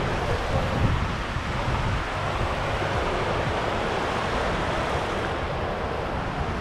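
Gentle surf washing up and drawing back over a flat sandy beach at the waterline, a steady hiss of foam and water, with wind buffeting the microphone as a low rumble.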